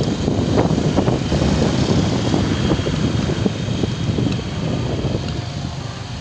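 Wind buffeting the microphone of a phone carried on a moving motorcycle, over the motorcycle's engine and road noise. The rumble eases slightly toward the end.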